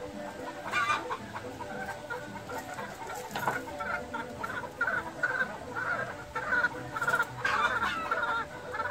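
Fowl clucking, a run of short repeated calls that grows busier in the second half, with a few sharp clicks.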